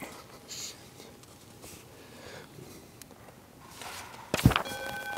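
Quiet church hall with faint paper rustling, then a sharp thump about four and a half seconds in. Right after it a held musical note starts and sustains, the start of music.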